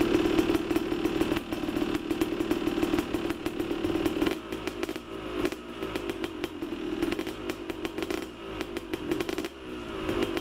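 A motorcycle engine running, a steady drone overlaid with a dense, uneven crackle and clatter.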